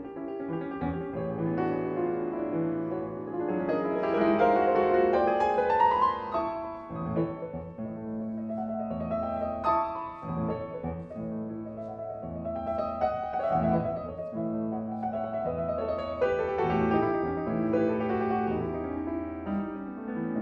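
Fazioli concert grand piano playing classical solo music, with a rising run about four seconds in at the loudest point.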